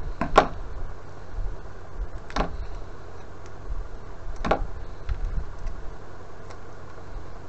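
Card being cut by hand: three short sharp cuts about two seconds apart, over a steady low hum.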